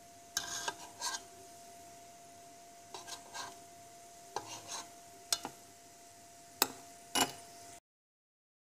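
A metal spoon scraping and clinking in a stainless-steel pot in a few short strokes, skimming the foam off melted butter as it is clarified, over a faint steady tone. The sound cuts off to silence near the end.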